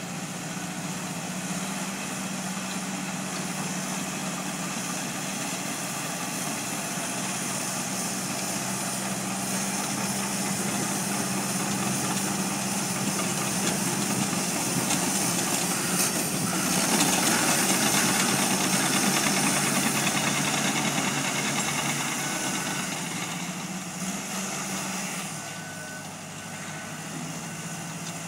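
Cat D4K crawler dozer's diesel engine running under load with its tracks working as it pushes gravel, growing louder as it comes close past the middle of the stretch. The engine note drops to a lower, idling pitch near the end.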